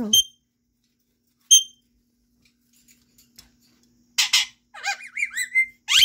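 Pet parrot imitating the R2-D2 droid: two short high chirps in the first two seconds, then, from about four seconds in, a quick run of warbling whistles that bend up and down in pitch.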